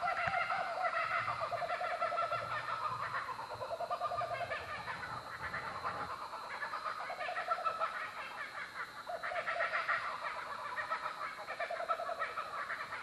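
Several birds calling over one another in bouts of about a second, each a fast run of repeated notes, at different pitches.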